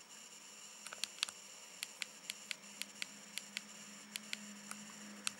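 Rubber keypad buttons of a Nokia 1100 clicking under a thumb, a quick irregular run of small presses starting about a second in. No key tones or melody come from the phone: its ringer and earpiece are dead, the common no-sound fault.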